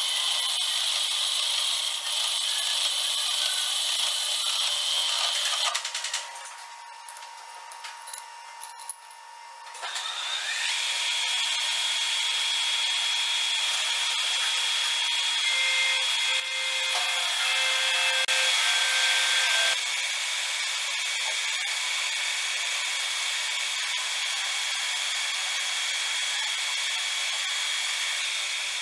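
Metal lathe cutting: a parting blade feeds into a spinning workpiece with a steady high-pitched whine. It drops away for a few seconds about six seconds in, then the lathe runs again as a tool faces and turns a bright metal part held in a fixture on the chuck.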